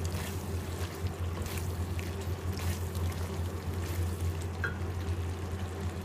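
Silicone spatula stirring and scraping thick, oily liver-and-kidney masala in a steel wok, with wet, sizzling sounds from the gravy and short scrapes every second or so, over a steady low hum.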